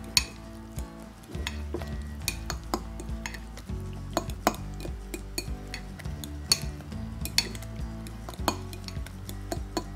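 Metal spoon stirring thick sour cream and parsley sauce in a glass bowl, clinking against the glass in irregular sharp taps.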